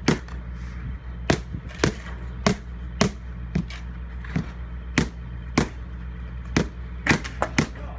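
Repeated sharp hammer knocks on granite pavers during their installation, about one to two blows a second, unevenly spaced, with a quick cluster near the end. A steady low machine hum runs underneath.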